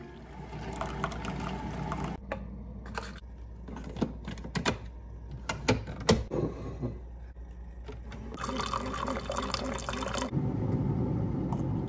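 Keurig single-serve coffee maker: a few clicks and knocks as it is operated, then it brews, coffee running in a steady stream into a stainless steel tumbler from about two-thirds of the way in.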